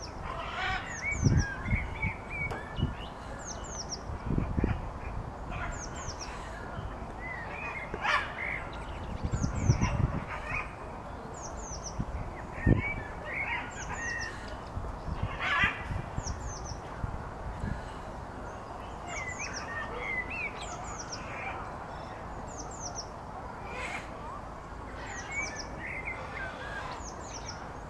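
Small songbirds singing: a short high, falling chirp phrase repeated every second or two, with lower twittering calls between. A few low rumbles come and go in the first half.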